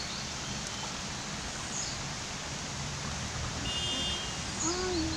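Rain-swollen, muddy river flowing past its bank: a steady rush of water, with a few short, high bird chirps.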